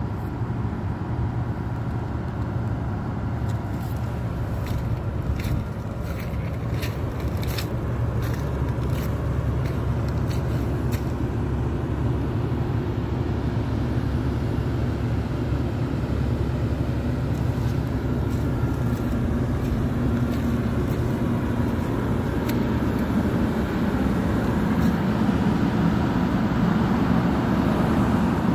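Isuzu 6HK1 six-cylinder diesel of a 2008 Hitachi ZX350LC-3 excavator running at a steady idle. A run of light clicks comes between about four and eleven seconds in, and the rumble grows slightly louder near the end.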